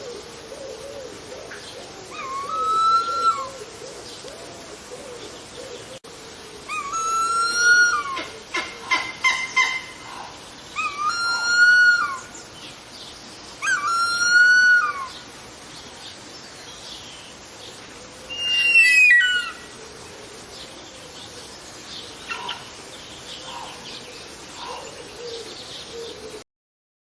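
Harpy eagle giving four drawn-out, arched wailing calls, each about a second long and a few seconds apart, then a higher call that falls in pitch. A quick run of clicks comes between the second and third calls, over a faint warbling background.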